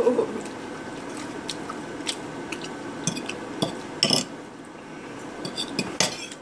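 Metal fork scraping and clinking on a ceramic plate during eating, with sharper scrapes about three, four and six seconds in.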